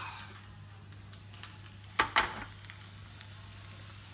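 A cast iron skillet is set down on the benchtop with two quick knocks about two seconds in. Under it runs a faint sizzle of the potato base still cooking in the hot pan, and a steady low hum.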